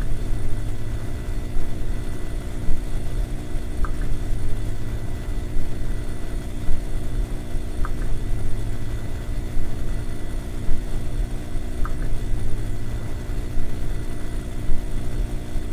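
A steady, loud, low electronic drone, like a rumbling engine, with a short high blip about every four seconds; an end-card sound bed.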